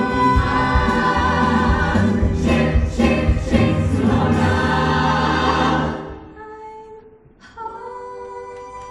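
Stage-musical cast singing together with the pit band, loud and full. About six seconds in the music falls away to a much quieter, thinner passage of a few sustained notes.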